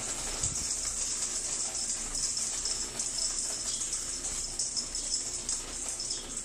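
A 4-inch blower fan running steadily in a DIY cacao winnower, a steady high hiss, with cacao nibs and husk pattering down its plastic chutes as the mix is fed in.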